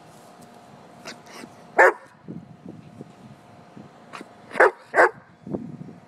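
German shepherd barking: three loud, short barks, one about two seconds in and a quick pair near the end, with a few fainter yips between.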